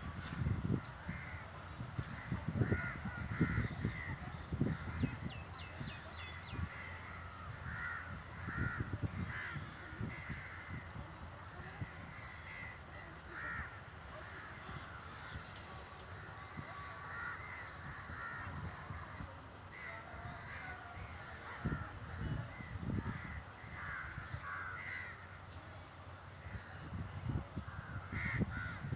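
Several birds calling, short harsh calls in quick runs, on and off throughout, over an intermittent low rumble.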